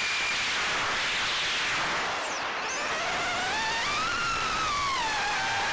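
FPV quadcopter's brushless motors and propellers, heard from the onboard camera. A high whine gives way about a second in to a rushing hiss of wind and prop wash. The whine then comes back, climbing and falling in pitch with the throttle.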